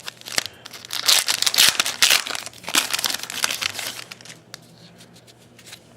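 Football trading-card pack wrapper being torn open and crumpled, a dense crinkling that is loudest in the first three seconds and dies down to a few faint clicks after about four seconds.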